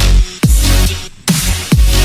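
Electronic dance music with a dubstep beat: heavy bass drops that fall in pitch and sharp bright hits in a steady rhythm.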